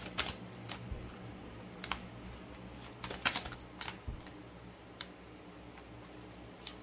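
Scattered light clicks and taps: a few single ones, with a short cluster of them about three seconds in.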